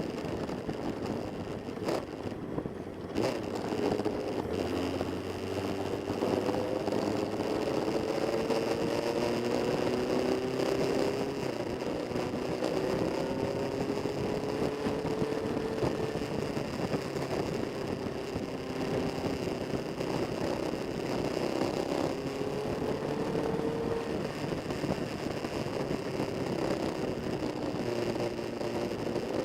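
Several classic Kawasaki motorcycle engines running together, their pitch rising again and again as they accelerate and shift up through the gears.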